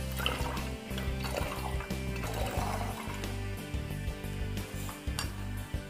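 Background music, with vinegar trickling and gurgling as it is poured from a bottle into a plastic bottle.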